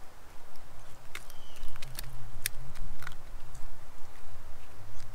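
Handling of a freshly caught bass while the hook is worked out of its mouth: a scatter of sharp clicks and ticks, about one every half second, over a low rumble.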